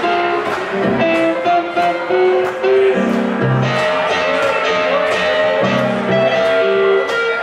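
Live blues band playing an instrumental passage: hollow-body archtop electric guitar and keyboard over a steady drum beat.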